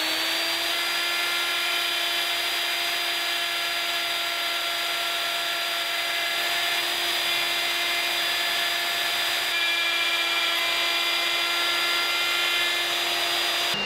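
DeWalt plunge router running at full speed with a steady high whine, guided freehand through oak to cut the letterbox recess.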